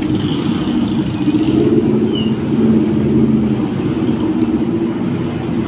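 Steady low mechanical drone, like a running engine.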